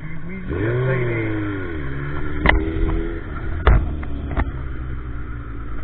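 Motorcycle engine revving up and dropping back about half a second in, then running at a steadier pitch, with three sharp knocks in the middle.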